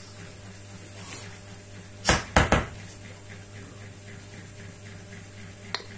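A hand slaps a wooden plank floor three times in quick succession about two seconds in, followed by a single fainter tap near the end, over a steady low hum.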